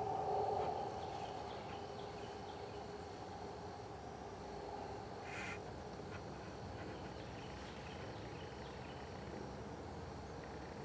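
Quiet field ambience: a steady high insect buzz, with a brief louder animal call in the first second and a short chirp about five and a half seconds in.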